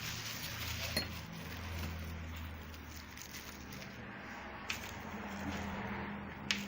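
Three sharp metallic clinks spread over a few seconds, above a steady low hum: metal parts of a car starter motor being handled and fitted during reassembly.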